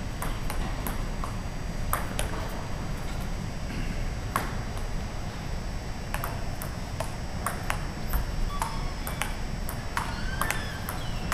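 Table tennis ball clicking off paddles and the table during a rally, a quick irregular series of sharp ticks with short gaps between points.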